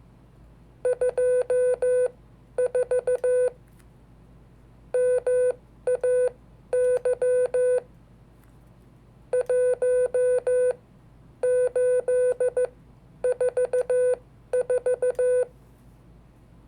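Morse code (CW) sent as a single beeping tone, short and long beeps keyed into several characters with brief pauses between them.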